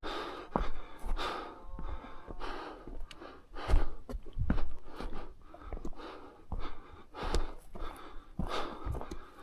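A person breathing hard in short, repeated breaths, about one or two a second, with a few soft thuds of footsteps.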